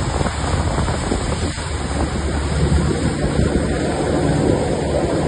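Wind buffeting the microphone aboard a motorboat under way, over the boat's steady engine and the rush of its wake.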